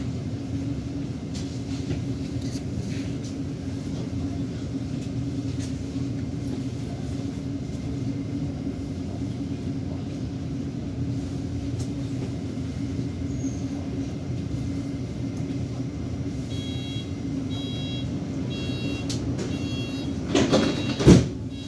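Helsinki metro car's steady hum and rumble. About three-quarters of the way in, a run of short high electronic beeps sounds, typical of the door-closing warning, followed near the end by a loud clunk of the sliding doors shutting.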